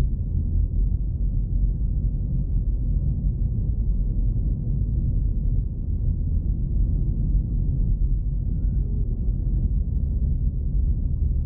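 Car driving along a road, heard from inside the cabin: a steady low rumble of engine and tyre noise with no sudden events.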